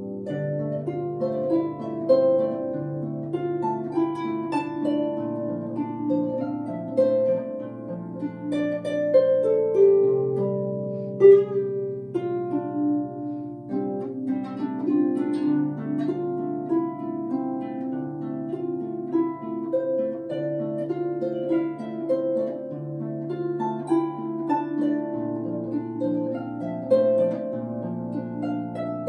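Solo harp played with both hands: low bass notes ringing under a running melody of plucked higher notes, continuing without a break.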